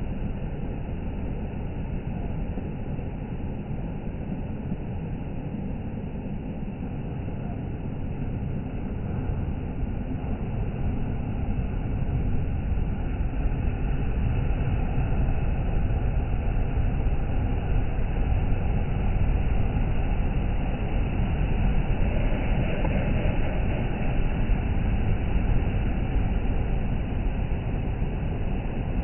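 Sea surf washing on the shore as a steady, low rumbling noise that grows louder about halfway through.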